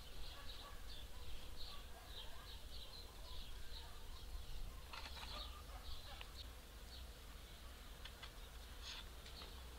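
Small birds chirping over and over, with a few light clicks about halfway through and near the end as a spoked metal wheel's hub is handled and slid onto a wooden axle.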